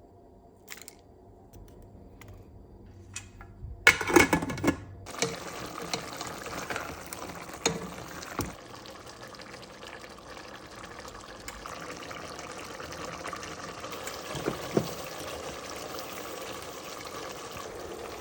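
A pan of lamb korma cooking: a steady watery hiss, with a loud burst about four seconds in and a few clicks after it.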